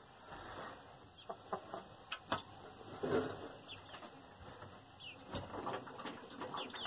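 Young chickens (pullets) on their roost giving short soft chirps and clucks, thickest near the end, among several small knocks and rustles.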